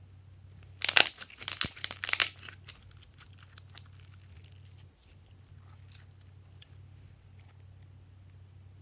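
Glossy slime squeezed and folded by hand: a run of loud crackling pops from trapped air starts about a second in and lasts about a second and a half. Fainter scattered clicks follow as it is stretched, over a faint steady low hum.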